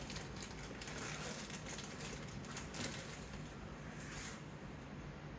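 Faint handling sounds at a workbench: scattered small clicks and light rustles, with a brief rustle about four seconds in.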